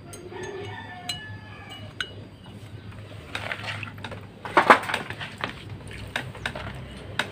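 Small metal engine parts clinking and knocking against a motorcycle cylinder head as it is handled: a few light ringing clinks, then a louder cluster of knocks about halfway through.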